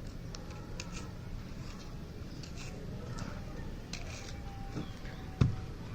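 Dried sand-cement texture being pressed and crumbled by hand: a gritty rustle with scattered small cracks, and one sharp crack about five seconds in. The mix has set very hard and resists crumbling.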